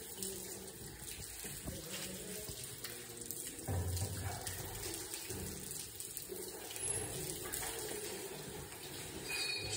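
Water running steadily, with a brief low thud about four seconds in.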